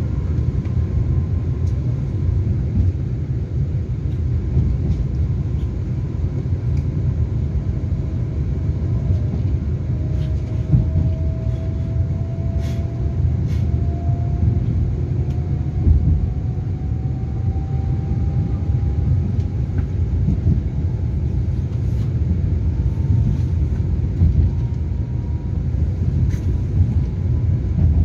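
Taiwan Railway EMU3000 electric multiple unit accelerating away from a station, heard inside the passenger car. The Hitachi SiC-VVVF inverter's whine rises slowly in pitch over a steady rumble of the running gear, then drops back and starts climbing again near the end. A few sharp clicks come about halfway through.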